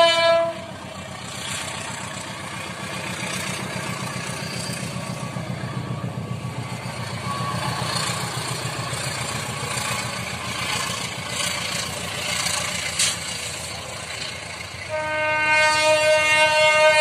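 A train horn blast cuts off about half a second in. The passing train's running rumble follows, with one sharp clack near the end of it. About 15 seconds in the locomotive's horn sounds again in a long, loud blast: the Semboyan 35 horn signal.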